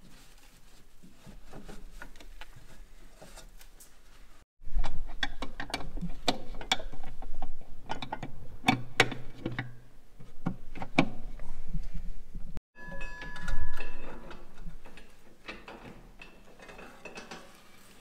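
Metal clanks and clicks of hand tools and parts while a combine corn head's drive is reassembled, in irregular runs of short knocks that break off abruptly twice.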